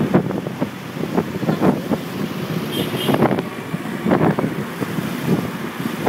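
Wind buffeting the microphone in uneven gusts while riding through city traffic, with vehicle engine and road noise underneath.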